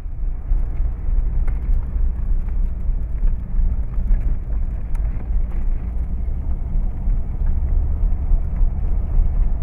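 Inside the cabin of a 1964 Bentley S3 Continental Flying Spur on the move: its 6.2-litre V8 and the road noise make a steady low rumble.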